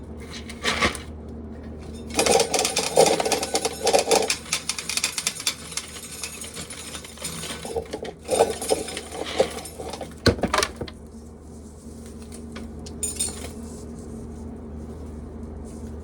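Dry corn being shelled: kernels clattering and rattling in two bursts, with a sharp knock about ten seconds in. A box fan hums steadily underneath.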